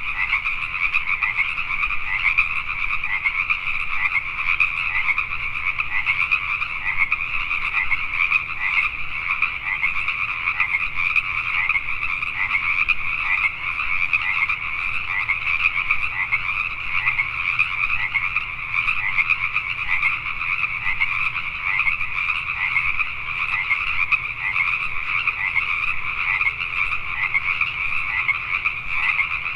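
A dense chorus of Pacific tree frogs (Pacific chorus frogs), many calling over one another without a break.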